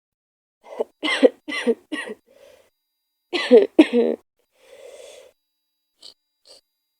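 A woman with a cold coughing: a run of quick coughs, then two harder, louder coughs about a second later, followed by a faint breath.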